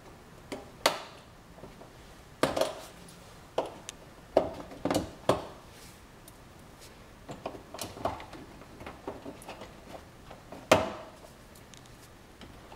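Irregular clicks and knocks of a screwdriver working the screws and plastic clips of a car's plastic fender liner in the wheel well, with the odd sharper knock; the loudest comes about two seconds before the end.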